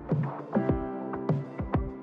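Electronic background music: a deep kick-drum beat under held chords.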